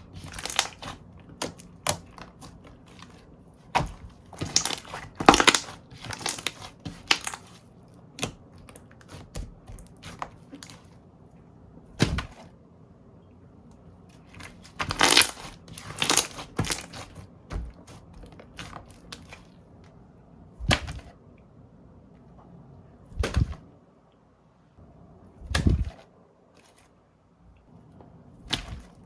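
Slime being squeezed, stretched and pressed by hand, making irregular bursts of crackling and popping, with a few single duller thuds near the end.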